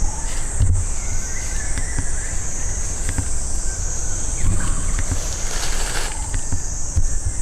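Forest ambience: insects drone steadily at a high pitch, over a low rumble with soft knocks and a few faint chirps.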